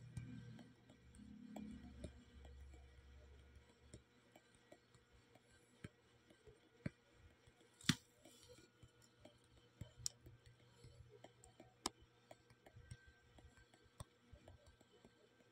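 Faint, irregular clicks of fingertip taps on a phone's touchscreen, one sharper click about eight seconds in, over near silence with a faint low hum in the first few seconds.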